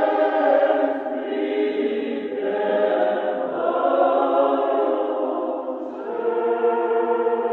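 Choir singing slow, sustained chords in the manner of Orthodox church chant, the harmony shifting every couple of seconds.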